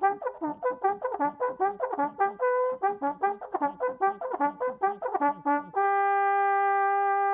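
Small valveless brass hunting horn played by buzzing the lips: a quick fanfare of short, separate notes jumping among its four natural notes, the pitch changed only by lip speed, ending on one long held note.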